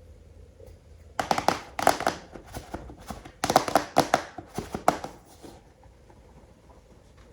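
Hands handling plastic toys: a quick, uneven run of clicks, taps and crinkles in two bursts, starting about a second in and again around three and a half seconds in, then quiet handling.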